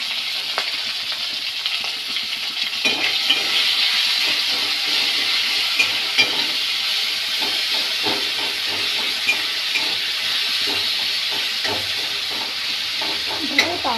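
Chopped tomatoes sizzling steadily in hot oil in a metal kadai, with a metal spatula stirring and scraping against the pan in frequent short clicks from about three seconds in.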